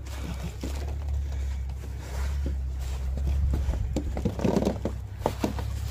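Nylon hammock fabric rustling and scraping as a man climbs into a lay-flat camping hammock and settles his weight, with scattered small clicks over a steady low rumble and a denser muffled burst of movement about four and a half seconds in.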